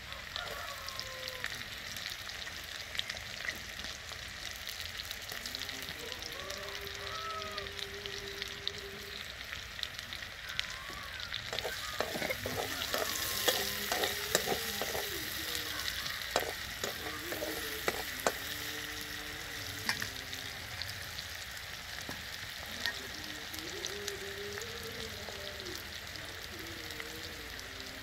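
Chopped onions and green chillies sizzling steadily in hot oil in a steel kadai. About halfway through, a metal slotted spatula stirs them, clicking and scraping against the pan.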